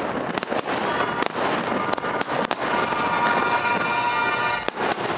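Aerial firework shells bursting in a rapid, irregular string of bangs and crackles. Music sounds beneath them and is loudest through the middle.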